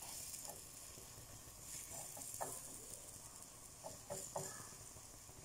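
Semolina dough cooking on a flat pan, a faint sizzle, while dough is pressed by hand into a metal ring on the pan, giving a few soft taps and pats.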